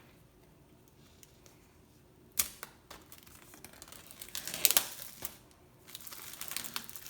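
Packaging being pulled open: a sharp click about two seconds in, then crinkling and tearing, loudest around the middle, with more rustling near the end.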